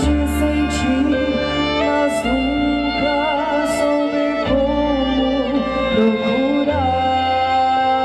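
Slow background song, a singer over sustained accompaniment, with the bass note changing about every two seconds.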